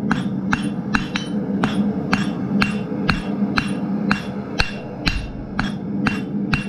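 Hand hammer striking red-hot steel on an anvil, drawing out a tapered tip: about two blows a second, each with a short metallic ring, over a steady low hum.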